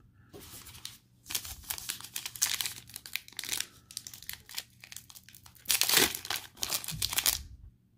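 Foil trading-card pack wrapper being crinkled and torn open by hand: a run of rapid crackles, loudest about six seconds in.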